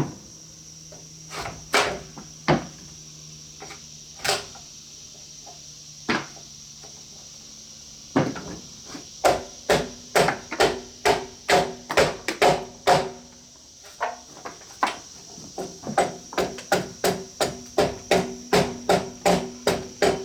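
Repeated sharp blows on wood, a few scattered strikes at first, then a steady run of about two strikes a second from about eight seconds in, each with a short low ring.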